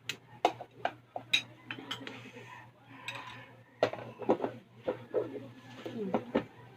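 Table noise during a crab meal: a run of about a dozen sharp, irregular clicks and clinks of dishes and utensils being handled and crab shells being worked.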